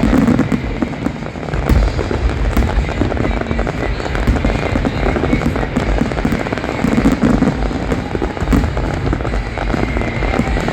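Aerial fireworks in a dense barrage: many overlapping booms and crackling bursts in quick succession, loud throughout.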